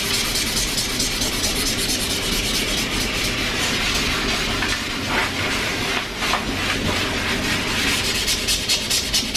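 Hand scrubbing of a painted wall: a steady rough hiss made of quick repeated strokes, with a few harder strokes about five and six seconds in.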